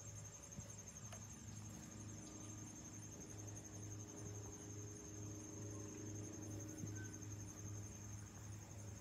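Faint, distant drone of an aircraft passing high overhead, a low hum that wavers about twice a second. A steady high-pitched insect trill runs over it.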